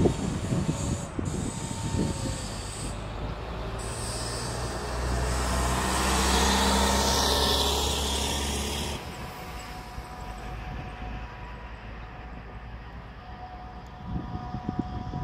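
Trolleybus going by: a steady electric hum with hiss above it that builds to its loudest a little past halfway and drops away suddenly about nine seconds in. A low rumble comes up again near the end.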